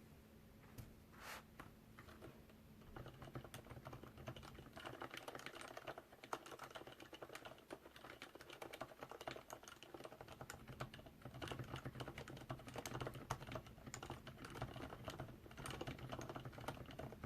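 Soft, fast typing on a keyboard with lubed, silenced switches: a few separate key presses, then steady typing from about three seconds in.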